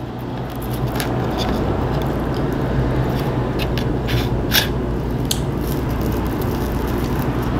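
A steady low background hum, with a few light clicks and soft scrapes from someone eating breakfast at a table.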